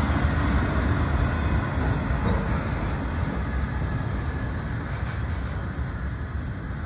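Freight train's autorack cars rolling past on steel wheels and rails, the last car going away so that the rumble slowly fades.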